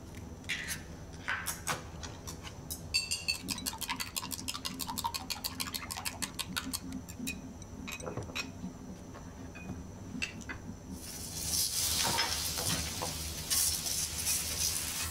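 Kitchen cooking sounds: scattered utensil clatter, then a run of quick, even knife taps on a cutting board. About eleven seconds in, a steady sizzle of food frying in a pan begins and becomes the loudest sound.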